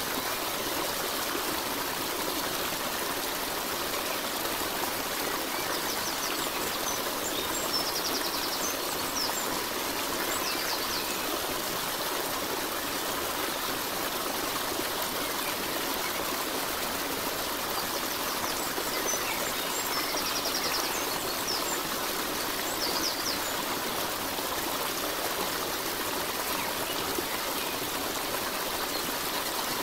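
Steady sound of running stream water, with faint high chirps twice.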